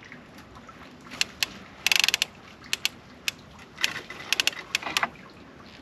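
Fishing reel's ratchet clicking: scattered single ticks with a short fast run of clicks about two seconds in, as line is drawn off or wound in.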